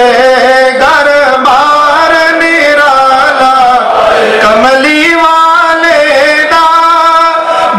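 A man singing a Punjabi naat solo into a microphone, drawing out long held notes that waver and glide in pitch between lines of the refrain.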